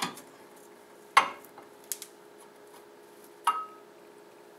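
Sharp metallic clinks and clanks of brake pads, spring clips and caliper knocking together as pads are fitted into a 2004 Mazda 6 front brake caliper. There are four knocks, the loudest about a second in, and the last one rings briefly.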